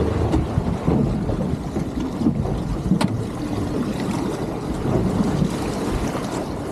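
Wind buffeting the microphone, with water lapping and slapping against a boat's hull in open-ocean swell. A single sharp click about three seconds in.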